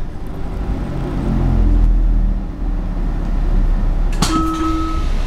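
Washington Metro railcar coming to a stop at a station platform: a steady low rumble with a brief low whine as it halts. About four seconds in there is a sharp clack, followed by a steady tone lasting under a second.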